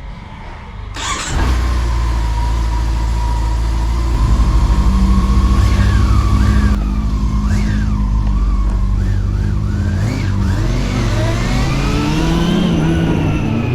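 Honda CB400 Super Four Revo's 399cc inline-four on its stock exhaust, coming in suddenly about a second in and running steadily, louder a few seconds later, then revving up with a rising pitch near the end.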